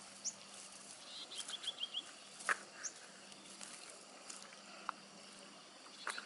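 Faint outdoor birdsong: short high chirps and a quick run of repeated notes about a second in. A few sharp clicks from the cast net being handled, the loudest about two and a half seconds in.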